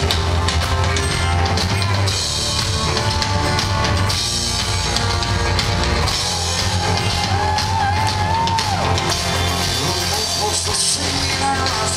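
Live rock band playing an instrumental break with heavy drumming, two players beating the drum kit, over cello, acoustic guitar and electric bass.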